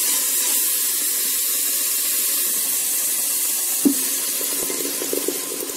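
Onion paste frying in hot mustard oil in a pressure cooker, a steady sizzle as a spoon stirs it. Just before four seconds in there is a knock, then tomato, chilli and ginger paste is poured in with a wet, uneven splatter and the sizzle eases.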